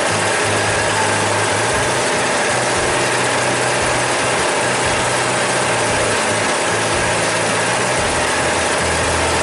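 Engine of a small wooden river boat running steadily as the boat moves along, with a constant rushing noise over it.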